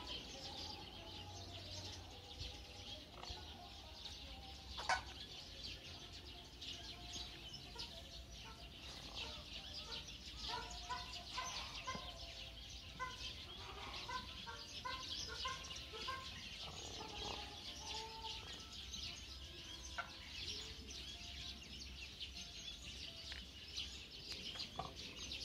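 Birds calling in an aviary: a steady, dense, high chirping chorus with short clucking calls mixed in, busiest in the middle. There is one sharp knock about five seconds in.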